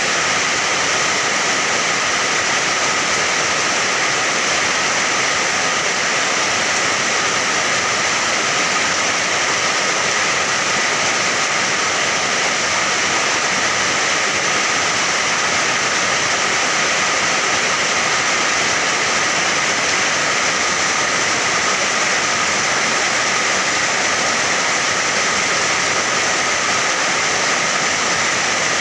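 Steady, even rain noise with no separate drops or events standing out.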